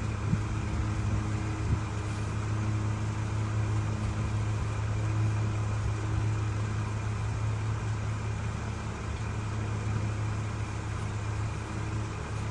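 Car running: a steady low engine hum under an even hiss of road noise.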